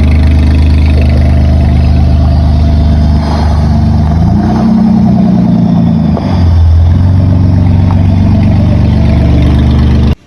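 Car engine running loudly at idle, revved once about four seconds in, its pitch climbing and dropping back over about two seconds, then cutting off suddenly just before the end.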